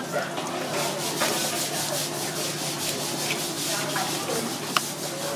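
Kitchen knife cutting and scraping along a parrotfish's thick scaled skin on a wooden cutting board: a steady rasping scrape, with a couple of sharp clicks.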